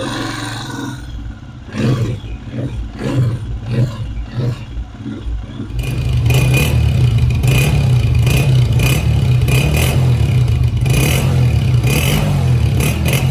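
Honda CG125 single-cylinder four-stroke engine running, just rebuilt with new cam followers to cure a tappet tick. About six seconds in it becomes much louder and closer.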